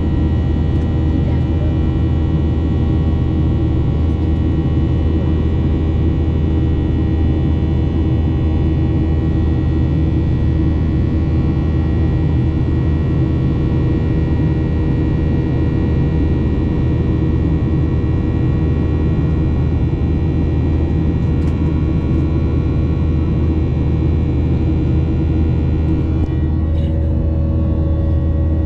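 Boeing 737-900ER cabin noise in flight: the steady drone of the CFM56-7B turbofans with several steady whining tones over a deep rumble of engine and airflow. Near the end the tones shift slightly and a new steady tone comes in.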